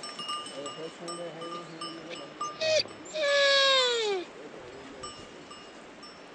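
A sheep bleats: a short cry, then one long, loud call whose pitch falls steadily over about a second, a little past the middle.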